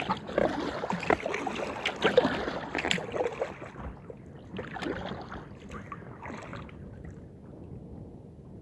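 Paddle strokes of an inflatable kayak splashing in the water, with sharp clicks and knocks, easing off after about four seconds to a faint steady hiss.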